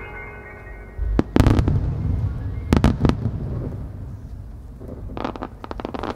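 Aerial firework shells bursting: two loud booms about a second in and just under three seconds in, each rumbling briefly, then a dense run of crackling stars near the end.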